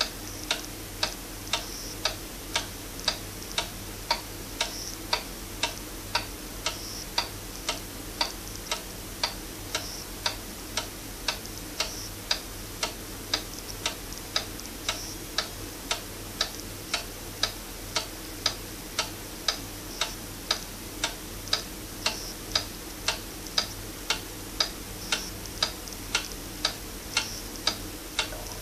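Highlands wind-up pendulum wall clock ticking steadily, its escapement making an even tick-tock at about two ticks a second.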